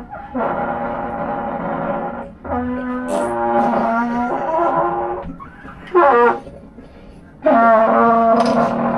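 A brass instrument playing short improvised phrases of held notes that change pitch, with brief pauses between phrases and a short loud burst of notes about six seconds in.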